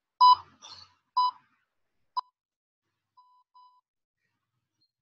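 Electronic interval-timer beeps: three short, high-pitched beeps about a second apart, the last one clipped, then two faint short tones, signalling the change to the next timed exercise interval.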